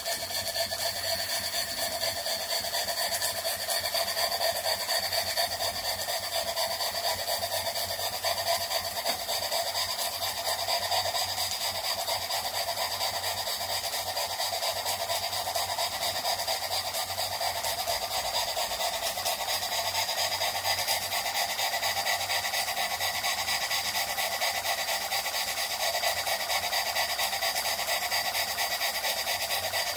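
Jensen 20G model steam engine running fast on steam: a steady whirring with rapid exhaust beats too quick to count, and a few steady tones over it.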